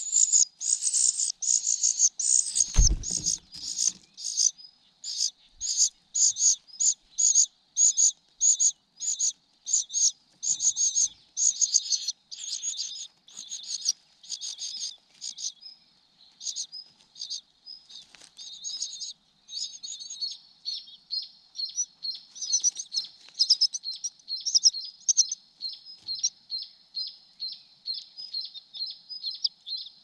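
Cuckoo chick begging: a long series of short, high, thin calls repeated about twice a second, turning into a faster, denser chatter in the second half. One low thump about three seconds in.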